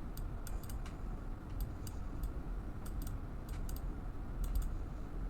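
Computer keyboard and mouse clicks, scattered and irregular, some in quick pairs or clusters, over a low steady hum.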